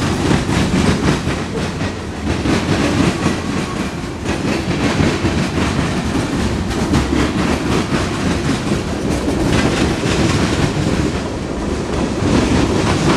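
Freight train of tank cars and covered hoppers rolling past at close range: a loud, steady rumble of steel wheels on rail, with repeated clacks as the wheels cross rail joints.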